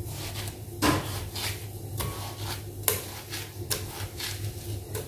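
Chunks of watermelon dropped one by one into a glass blender jar, making a handful of knocks and clunks against the glass; the loudest come about a second in and again near three seconds.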